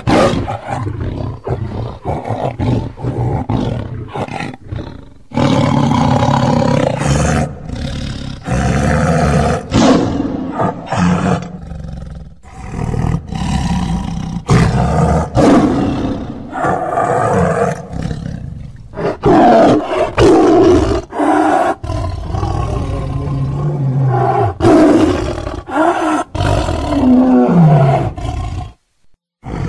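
Tiger roaring and growling in a long series of loud, rough calls with short pauses between them; one call near the end slides down in pitch.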